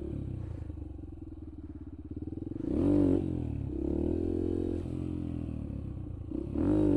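Yamaha TT-R125's single-cylinder four-stroke engine running at low revs, then revved hard about two and a half seconds in to lift the front wheel into a wheelie. It runs at higher, wavering revs through the wheelie and is revved sharply again near the end.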